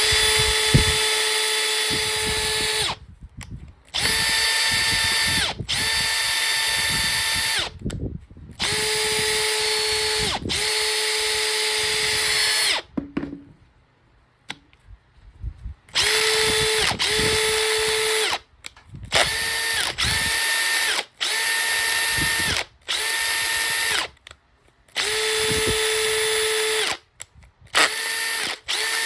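Makita DF481D cordless driver drill running free in more than a dozen short bursts of about one to three seconds each. Each burst is a steady high whine at one speed, with brief pauses between them.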